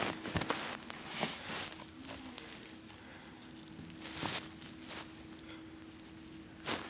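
Handling noise: scattered rustles and soft knocks as rubber toy snakes are moved about on a shaggy carpet, loudest about four seconds in, over a faint steady hum.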